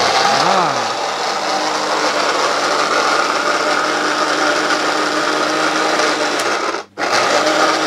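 Electric mixer grinder's motor running at speed, its blade crushing fresh ginger with a little water in a stainless steel jar. It is run in pulses: about 7 seconds in it cuts out for a moment and starts again, a second burst of the on-off use that keeps the motor from overworking.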